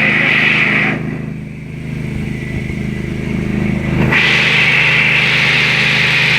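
Engine of a walk-behind concrete cutting machine running steadily, with the high, hissing whine of its blade cutting into concrete. The blade noise eases about a second in and comes back strongly about four seconds in.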